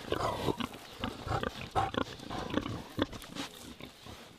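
Pigs grunting, a dense run of short irregular grunts from several animals.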